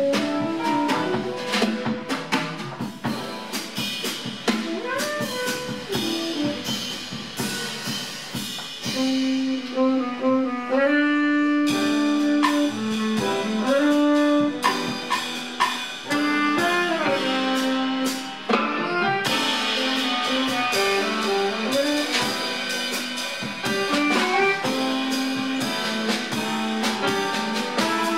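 Small jazz combo playing live: tenor saxophone on the lead line over drum kit, upright bass and piano.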